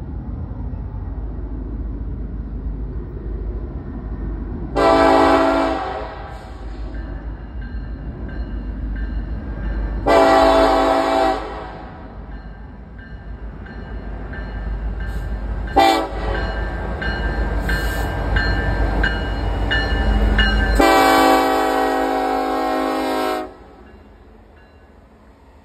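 Norfolk Southern EMD SD70ACe locomotive sounding its air horn for a grade crossing in the long, long, short, long pattern, the last blast the longest, over the low rumble of the approaching diesel train. The horn cuts off as the locomotive passes, and the rumble drops away.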